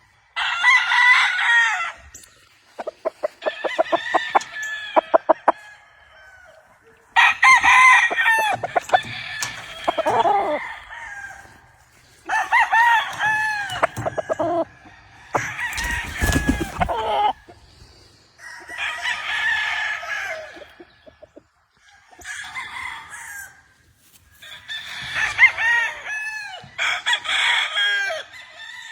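Several gamefowl roosters crowing one after another, about seven crows of one to two seconds each, with a burst of rapid clucking a few seconds in.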